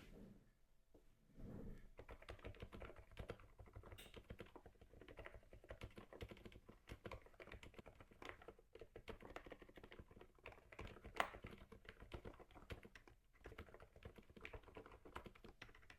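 Typing on an AMB066 Alice-layout mechanical keyboard with Cidoo silent switches: a quiet, muffled stream of keystrokes that starts about a second and a half in, with one sharper click near the middle.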